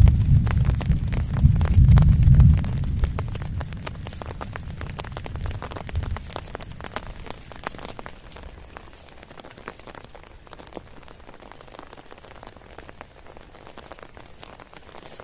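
Thunder rumbling low and loud for the first few seconds, then fading away, over steady rain with a dense patter of drops. A rapid high pulsing chirp runs alongside until about halfway, then stops.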